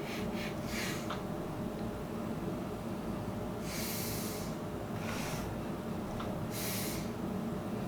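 A man sniffing whiskey from a tasting glass: a few quick nasal sniffs, then longer, deeper inhalations through the nose a few seconds apart.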